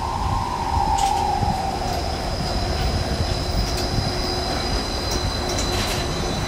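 Disneyland monorail pulling into the station: its drive whine falls in pitch as it slows, over a steady low rumble, with a thin high whine above.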